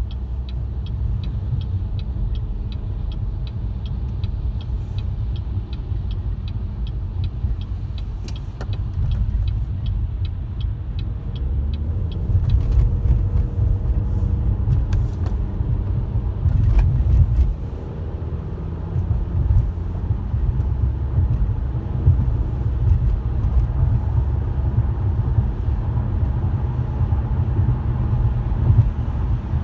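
Car on the move: a steady low rumble of road and engine noise. A fast, even ticking runs through it for about the first twelve seconds, then stops, and a few sharp clicks follow.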